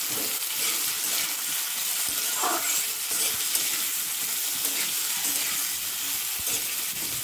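Matchstick-cut potatoes sizzling in hot oil in a steel wok (kadai), stirred and turned with a metal spatula that scrapes against the pan.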